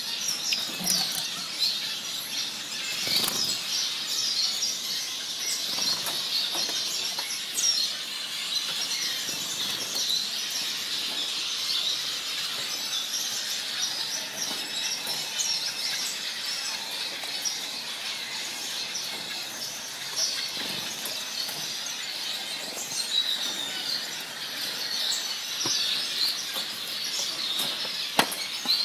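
Caged finches chirping and twittering, short high calls overlapping one after another throughout, with a few sharp knocks from the cage now and then.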